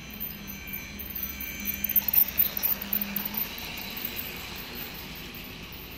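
Toy model train running on plastic track, its small electric motor humming, with a louder rapid clatter of wheels and couplings for a second or so about two seconds in as it passes close.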